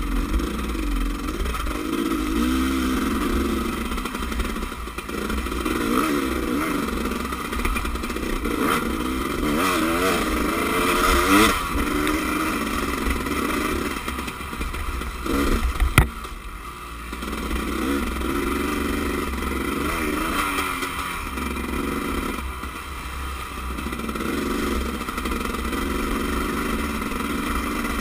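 Off-road enduro motorcycle engine running on a rough dirt trail, its pitch rising and falling as the throttle is opened and closed, with wind rumbling on the camera microphone. One sharp knock a little past halfway through.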